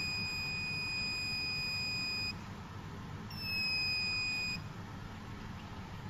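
Electronic alarm buzzer on an Arduino breadboard sounding a steady high-pitched tone that stops a little over two seconds in, then a second, shorter beep of just over a second. It is set off by the PIR motion sensor detecting motion.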